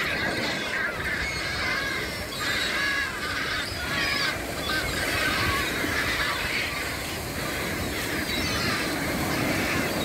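A large flock of gulls calling, many short harsh calls overlapping without pause, over the steady wash of small waves breaking on the beach.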